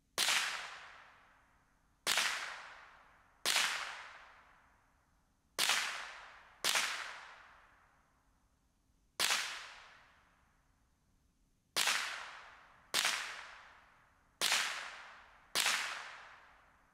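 Ten single .22 rimfire shots from a semi-automatic Ruger 10/22 rifle, fired one at a time at uneven gaps of about one to two and a half seconds. Each is a sharp crack with a tail that dies away over about a second.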